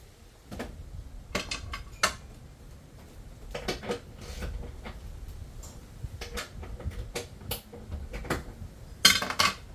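Irregular clicks and clinks of hand tools and small metal and plastic fasteners being handled during the job, with a quick cluster of clicks about nine seconds in.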